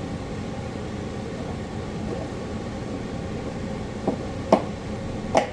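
Steady room noise, an even hiss and hum, with a few short faint clicks near the end.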